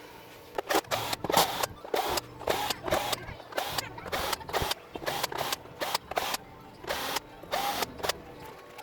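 A run of short, irregular mechanical clicking and rattling bursts, about two a second, starting about half a second in.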